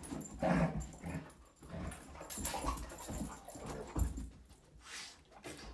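A Dalmatian and a curly-coated dog play-fighting: bursts of play growling and yipping with scuffling and thumps of paws and bodies, the loudest burst about half a second in. This is the growling of normal dog play, not aggression.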